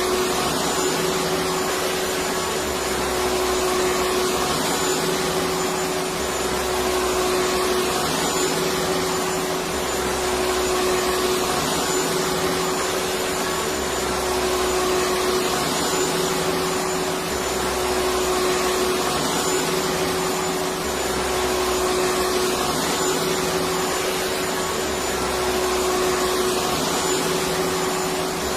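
Electric vacuum cleaner running steadily: a dense rushing whir with a constant hum, and a faint low swell every couple of seconds.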